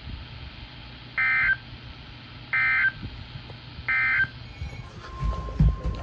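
Midland weather alert radio sending the EAS end-of-message code: three short, identical digital data bursts about 1.4 s apart, the SAME tones that close an alert broadcast. Low thumps of camera handling come in near the end.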